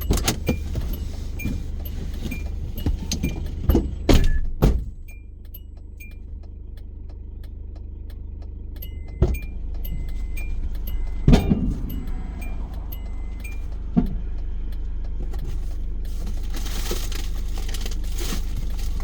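A car's steady engine hum with a light electronic ticking about twice a second, broken by a few knocks and thumps, loudest at about four seconds in and again near the middle.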